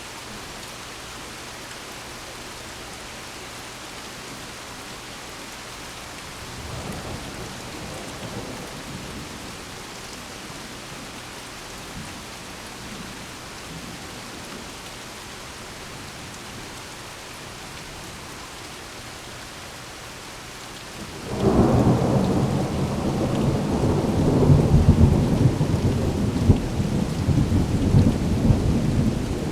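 Steady rain falling during a thunderstorm, with a soft distant rumble of thunder about seven seconds in. About 21 seconds in, a sudden loud clap of thunder breaks and keeps rumbling.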